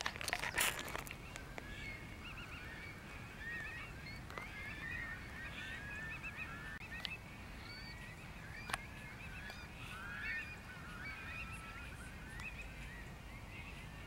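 Distant flock of geese calling: many overlapping honks over a faint low background hiss of wind.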